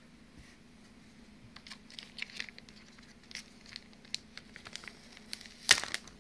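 Plastic packaging crinkling and rustling as it is handled, with scattered small clicks and taps and one louder knock near the end.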